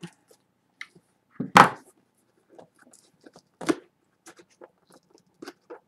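Packing tape being cut and peeled off a cardboard mailing box: scattered scrapes and crackles, with a sharp tearing rip about one and a half seconds in and a shorter one near four seconds.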